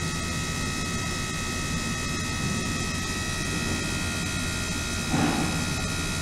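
Ultrasonic transducer system running in a water-filled plastic tank: a steady hum with several thin, steady high tones over it. A brief rustle comes about five seconds in.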